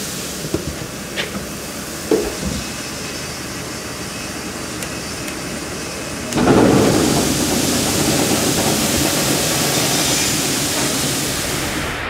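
Barley pouring in a steady stream from a tipper trailer's tailgate grain chute into an intake pit, a continuous rushing hiss, with a few sharp knocks in the first couple of seconds. About six seconds in the rushing gets suddenly louder and stays so.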